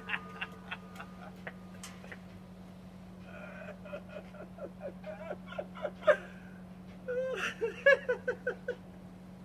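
A few faint clicks as a small homemade explosive blast dies away. From about three seconds in, an animal voice gives a series of short, pitched, whimpering calls, some in quick runs of four or five, over a steady low hum.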